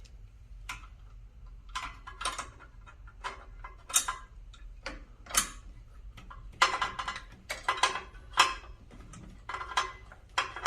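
Small metal parts, a bolt and spacer, clicking and clinking in irregular taps as they are handled and fitted into a tension knob.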